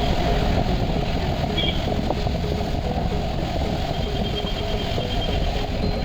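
Steady city traffic noise: vehicle engines and road rumble running continuously.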